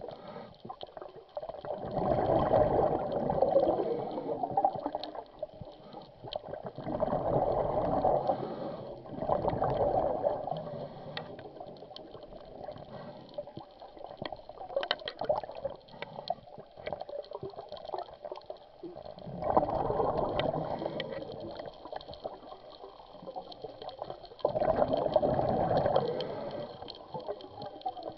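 Scuba diver's exhaled bubbles, heard underwater: bursts of gurgling bubbles from the regulator exhaust, each lasting one to two seconds, with quieter gaps between breaths.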